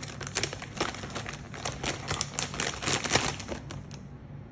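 Plastic toy packaging crinkling as it is handled, a run of irregular crackles that stops near the end.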